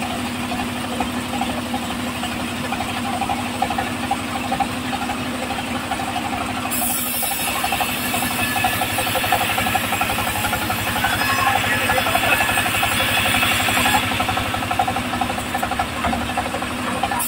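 Stationary engine running steadily with a rapid, even knock, driving a home-built band saw. From about seven seconds in to about fourteen seconds, the blade cuts through a teak plank, adding a loud high hiss over the engine.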